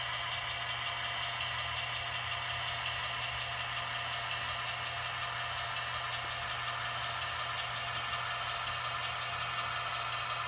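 Zimo sound decoder in a Roco model DSB My diesel locomotive playing its diesel engine sound through the model's small loudspeaker, running steadily at an unchanging idle.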